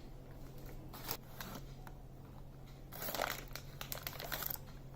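Faint rustling in a few short bursts: flour being dusted into a greased silicone cake mould.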